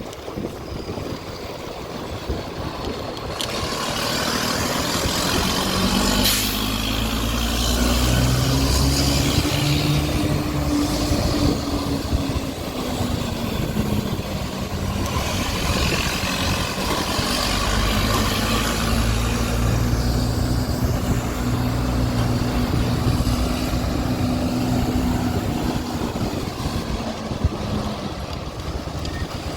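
Diesel engine of an Irizar Century charter coach rumbling under acceleration: its pitch climbs, drops at a gear change about halfway, then climbs again and holds before fading near the end.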